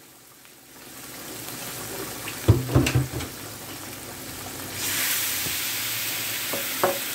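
A few knocks, then about five seconds in a loud sizzle starts as a strip steak is laid into a hot skillet of pan drippings, and it keeps sizzling.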